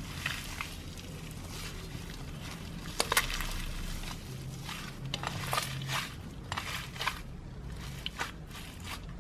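Slime being squeezed and poked by hand: irregular sticky crackles and pops, the sharpest about three seconds in, over a steady low hum.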